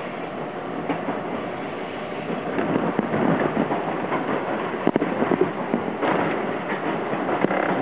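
Toronto subway train running along the track, its wheels clattering over switches and a crossover: a steady rumble that grows louder about two and a half seconds in, with a run of sharp, irregular clacks in the middle and a few more near the end.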